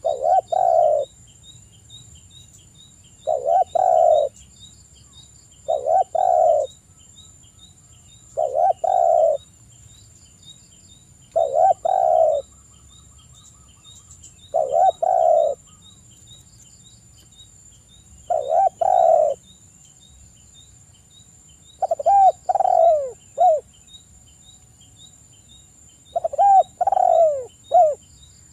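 Spotted dove cooing: nine repeated coo phrases, each about a second long and a few seconds apart, the last two longer with several notes each.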